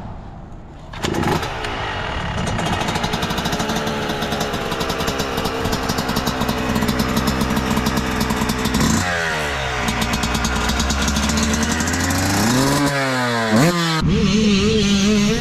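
Yamaha YZ two-stroke motocross bike kick-started, catching on the first kick about a second in and running at a steady fast idle. Near the end the throttle is blipped, the revs rising and falling a few times.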